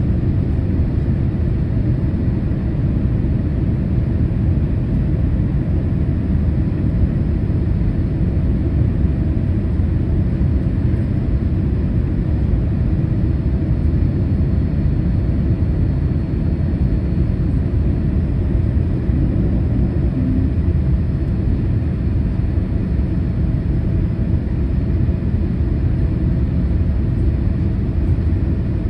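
Steady low rumble inside the cabin of a Boeing 787-8 airliner in flight on approach: engine and airflow noise, even throughout, with a faint steady hum above it.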